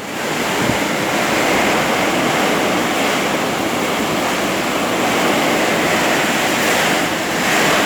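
Strong storm wind blowing hard, a steady loud rushing noise with no break.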